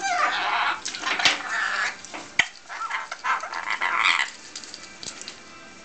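Rainbow lorikeet calling in a run of short, wavering squawks and chatters, with two sharp clicks in between.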